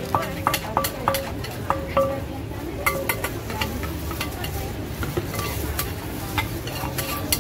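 Wooden pestle knocking in a large clay mortar while a mango salad is pounded: a quick series of knocks, two to three a second, for about the first two seconds, then slower, scattered knocks over a steady rustle as the salad is turned over in the mortar.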